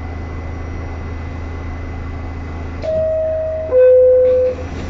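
New York City subway car's door-closing chime: two held tones, the second lower and louder, over the steady hum inside the car as the doors close.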